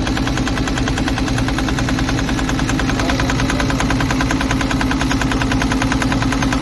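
Volvo EC210 excavator's diesel engine running at a steady idle, with a rapid, even knocking beat. The mechanic blames a bad injector nozzle for the engine's heavy black smoke.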